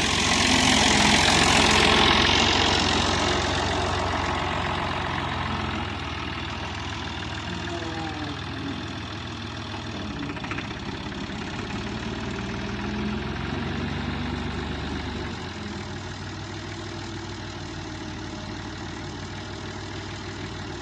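Massey Ferguson 350 tractor's diesel engine running. It is loudest in the first few seconds while the front loader carries a round bale away, then quieter and steady.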